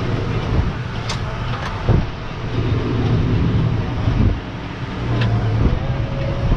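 Tractor towing two loaded grain trailers on the road: a steady engine and rolling rumble, with a few sharp knocks and rattles.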